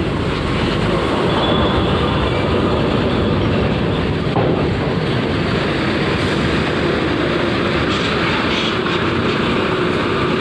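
Coach bus rolling slowly over a ferry's steel loading ramp: a steady, loud rumble with a dense clatter of the steel ramp plates under its wheels.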